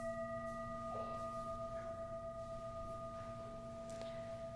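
Singing bowl used as an altar bell, ringing on after a single strike, with several steady tones that waver slightly and fade slowly. It is rung at the elevation of the chalice.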